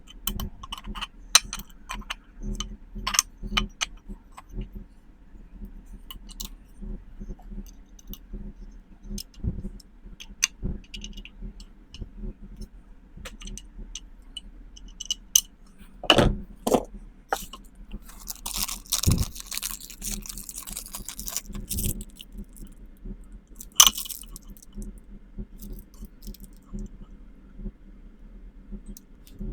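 Scattered small clicks and knocks of handling objects, with a few louder knocks and a stretch of scraping noise about two-thirds of the way through, over a steady low hum.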